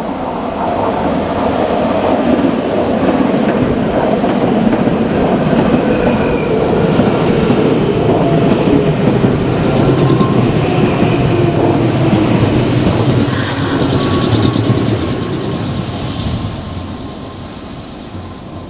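Nankai 6000 series stainless-steel electric train running past on a curve and slowing into a station, with a dense rumble of wheels on rail. A few brief high squeals come from the wheels on the curve, and the noise fades over the last few seconds as the train slows to a stop.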